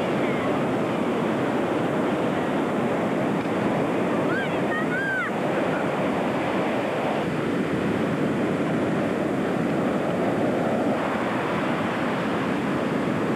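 Surf breaking and washing up a sandy beach: a steady rush of noise, with wind on the microphone. A few short, high rising-and-falling calls about four to five seconds in.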